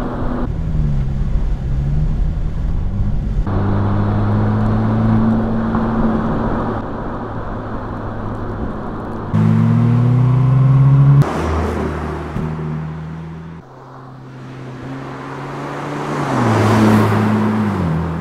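The Mercedes-AMG SL 43's 2.0-litre turbocharged inline four-cylinder petrol engine, heard in several short driving clips cut together, revving up and down under acceleration. Near the end the car drives past: the sound swells, then the engine note drops as it goes away.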